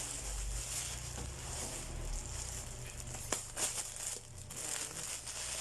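Plastic wrapping rustling and crinkling as a packed item is handled, with a few sharp clicks about three seconds in.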